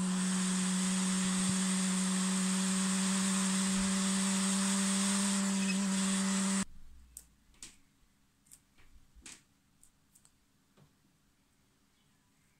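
Hot air rework station blowing with its nozzle off while desoldering a chip: a steady hum with an airy hiss that cuts off suddenly about two-thirds of the way through. A few faint light clicks follow.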